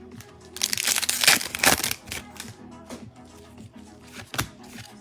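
A loud crinkling tear of a foil trading-card pack wrapper for about a second and a half, followed by light clicks of cards being handled, over steady background music.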